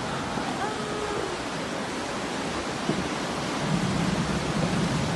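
Muddy floodwater rushing down a street in a flash flood: a steady, churning noise of fast-moving water.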